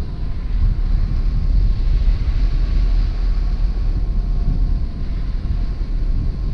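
Wind buffeting a wing-mounted camera's microphone as a hang glider flies, a steady heavy rumble with a faint steady whistle above it.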